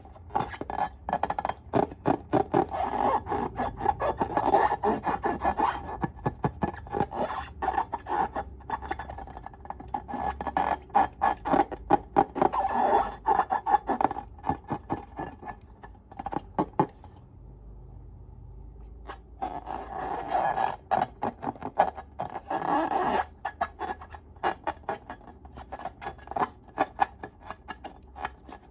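Slime being worked by hand, a squishy rubbing with dense, quick crackles and pops, dropping away briefly about two-thirds of the way through.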